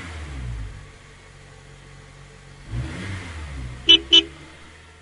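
Cartoon bus sound effect: an engine running and revving up briefly, then two quick horn beeps near the end.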